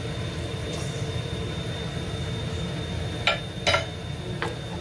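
A metal spoon clinking against a stainless steel pot about three times, a little after three seconds in, after measuring soy sauce, over a steady low kitchen rumble.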